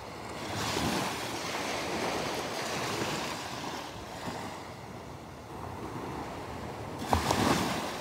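Small Gulf of Mexico waves washing onto the beach in a steady wash that swells about a second in, with wind buffeting the microphone. A short louder rustle comes about seven seconds in.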